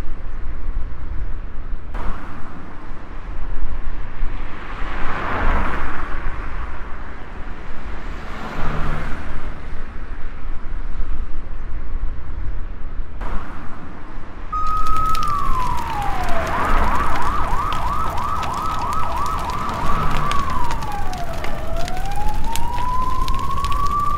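A steady noisy rumble with two swells. A little past halfway an emergency-vehicle siren comes in. It holds a tone, slides down, warbles rapidly in a fast yelp, then falls and slowly rises again.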